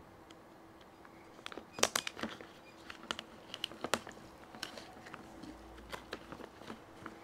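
Handling noise as a bottle is set down and a rub pouch is picked up: a quick run of sharp clicks and knocks about two seconds in, then lighter scattered ticks and crinkles, over a faint steady hum.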